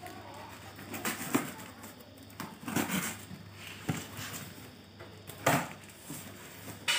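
A utility knife slicing through packing tape and cardboard, with the box's cardboard flaps scraping as they are pulled open: a run of separate sharp scrapes and rips.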